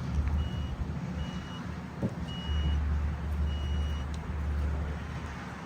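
A fuse-testing probe beeps four times, about once a second, short high beeps as it touches live fuse terminals. A beep shows power on that side of the fuse. A low rumble runs underneath, and there is a single click about two seconds in.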